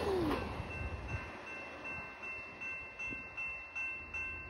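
Level-crossing warning bell ringing in a steady, evenly repeating rhythm with the signals still active, while the noise of the passing passenger train fades away in the first second.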